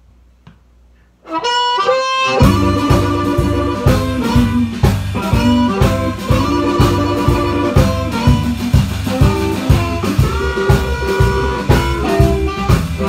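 A small blues band with harmonica, electric guitar and drums starts a take. After about a second of quiet, a few lead-in notes sound, and the full band comes in a second later with a steady beat. The harmonica carries the melody over the guitar.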